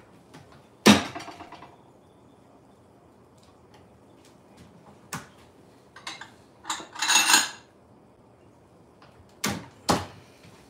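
Wooden kitchen cabinets being rummaged: a sharp knock with a short ring about a second in, a few small clicks, a brief clatter of dishes clinking around seven seconds, and two sharp knocks near the end as the cabinet doors shut.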